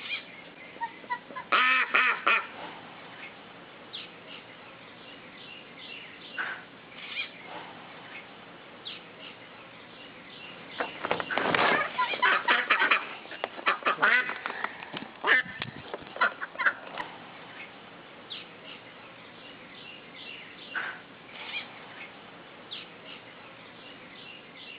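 Mallard ducks quacking in loud bursts of rapid calls, about two seconds in and again between about eleven and seventeen seconds in, with short scattered calls in between.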